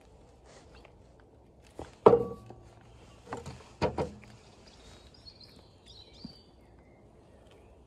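Puppies nipping and scuffling at a person's shoes, with a sharp knock about two seconds in and two more a little after three and a half seconds.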